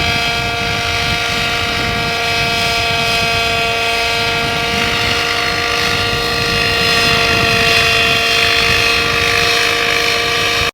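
The engine and rotors of ARTIS, a small unmanned research helicopter, running steadily in flight with a whine of several held tones. Gusty wind buffets the microphone underneath.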